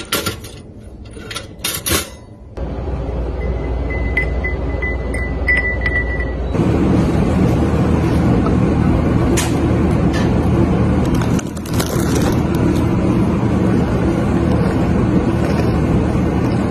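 A few sharp clicks as a pop-up toaster's lever is pushed down, followed by a steady low hum that gets louder about six seconds in.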